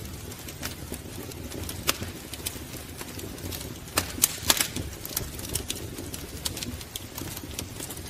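Wood fire crackling: irregular sharp pops and snaps over a low steady rumble, with a cluster of louder pops about four seconds in.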